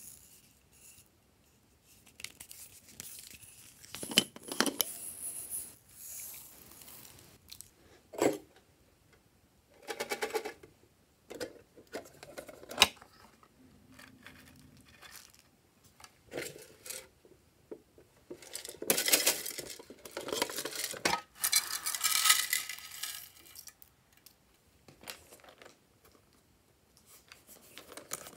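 Close-up hand handling of plastic packaging and containers: separate bursts of plastic crinkling and tearing mixed with sharp clicks and taps. The longest and loudest crinkling comes about two-thirds of the way through.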